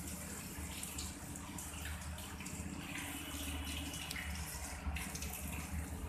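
KDK ceiling fan running at speed: a steady rushing of moving air with a constant low motor hum.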